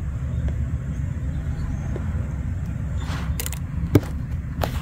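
Steady low background rumble, with a few light clicks and taps about three and four seconds in.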